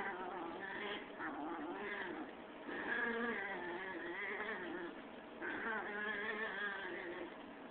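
A cat yowling in long, wavering calls.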